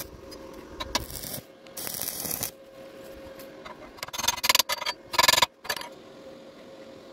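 Chipping hammer knocking the slag off a fresh stick weld on rebar: a quick flurry of sharp metallic knocks about four seconds in and a louder burst just after five seconds. Before it, near the start, the welding arc crackles.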